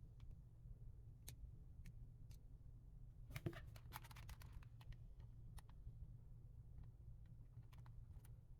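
Faint, scattered clicks of plastic magnetic 3x3 speed cubes being handled, with a short cluster of clicks about three and a half seconds in, over a low steady hum.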